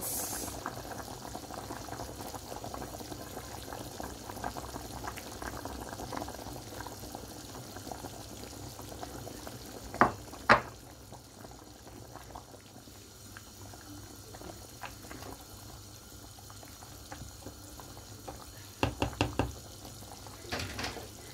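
Pot of tomato-based beef stew simmering, a steady bubbling. Two sharp knocks about ten seconds in and a quick run of knocks near the end.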